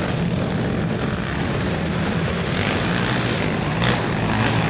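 Several racing ATV (quad) engines running at high revs, a steady drone.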